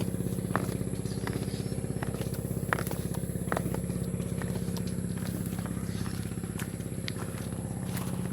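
A small engine running steadily with a fast, even pulse, under scattered sharp clicks and knocks of footsteps on the planks of a hanging footbridge.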